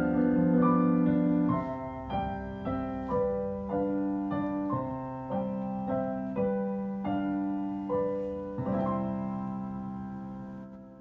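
Solo piano playing a slow, quiet melody, a note about every half second over held chords. It ends on a final chord that dies away.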